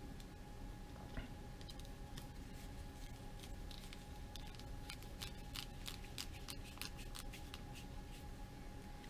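Scattered light clicks and ticks of small tools and parts being handled during reassembly of the bench grinder's cord wiring, most frequent around the middle, over a faint steady hum.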